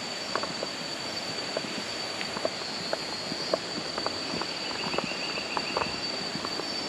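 Steady, high-pitched drone of crickets, joined midway by a second, lower buzz for a couple of seconds, with scattered light clicks over a faint background hiss.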